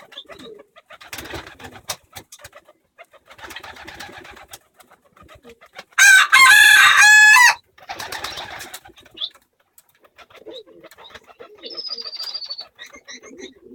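Pet bird calling: one very loud call of several pitched notes about six seconds in, lasting about a second and a half. Softer raspy sounds come before and after it, and a short high whistle sounds near the end.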